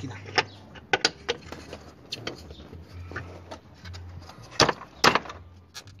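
Plastic fan blade being fitted by hand onto an electric radiator-fan motor's shaft inside its plastic shroud: scattered light clicks and knocks, with two louder knocks about four and a half and five seconds in.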